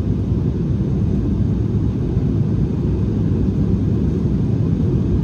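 Steady low rumble of engine and airflow noise inside a regional jet's cabin in flight.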